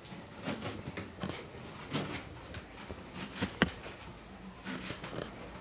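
Kitchen knife cutting a pineapple: irregular soft knocks and scraping strokes, with one sharper click about three and a half seconds in.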